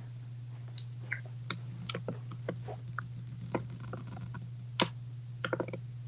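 Scattered light clicks and taps, irregular and short, over the steady low hum of an electric fan.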